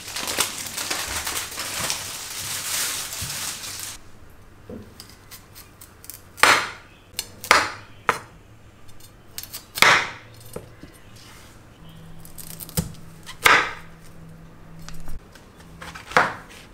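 Chef's knife cutting broccoli and mushrooms on a bamboo cutting board: about seven sharp, separate knocks of the blade meeting the board, spread over the last ten seconds. Before the knocks begin there are a few seconds of steady hiss.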